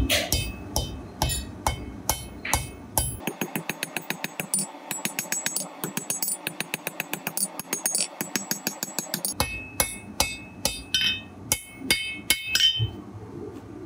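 Hand hammer striking a red-hot damascus steel blade on an anvil in a steady rhythm. The blows come about two a second, run faster through the middle, and slow again near the end, where the anvil rings on each strike.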